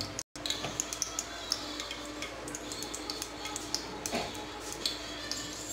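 Sesame oil heating in a pressure cooker on a gas burner, with faint irregular ticks and small crackles over a steady low hum.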